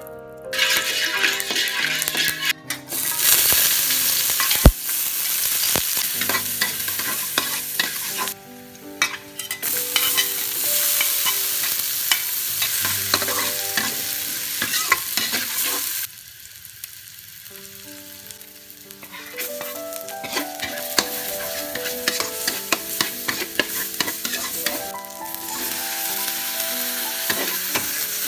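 Hot oil sizzling in a steel wok as chopped shallots and garlic are stir-fried, the spatula scraping and clacking against the pan. The sizzle starts suddenly about half a second in, one sharp knock sounds about five seconds in, and past the middle the sizzle drops away for a few seconds before returning as long beans go in near the end.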